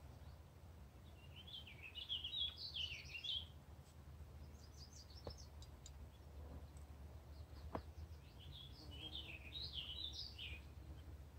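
A songbird singing two quick warbling phrases, one about a second in and one near the end, with a few short chirps between. Underneath is a faint, steady low rumble.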